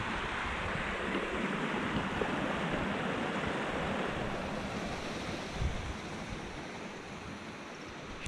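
Small mountain stream rushing down a narrow channel in a steady wash of water noise, with wind on the microphone. A brief low thump comes about five and a half seconds in, and the rush grows fainter near the end.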